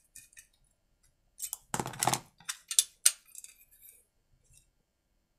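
Metal hand tool clicking and clinking against a chainsaw and the workbench: a quick cluster of sharp metallic clicks with a short rattle among them, lasting about two and a half seconds.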